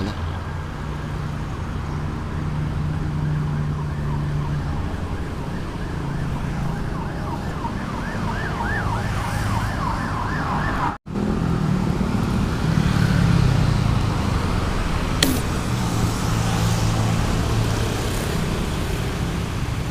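Steady hum of passing road traffic, with a warbling, siren-like tone rising and falling about three times a second for a few seconds before the middle. The sound drops out for a moment near the middle, and there is a single sharp click a little later.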